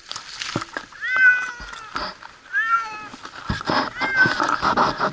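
A cat stranded in a tree meowing three times, about a second and a half apart, each call rising and then falling.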